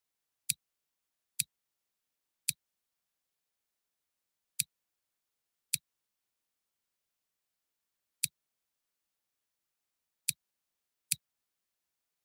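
Computer mouse button clicking, eight single sharp clicks at uneven intervals of about one to two and a half seconds.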